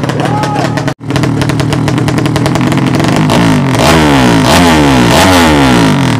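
A 200cc racing motorcycle engine runs steadily, then is revved over and over in the second half, its pitch falling and rising several times as it gets louder. There is a brief break in the sound about a second in.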